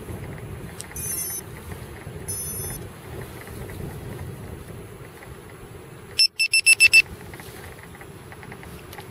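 Quadcopter's electronics beeping: two short high-pitched tone sequences in the first few seconds, then a loud run of six quick beeps about six seconds in. Steady wind noise on the microphone underneath.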